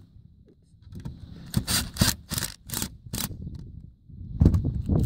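Socket tool turning the bolt on a metal solar panel mounting bracket: a run of about seven short scraping clicks starting about a second and a half in, followed near the end by low rumbling handling noise.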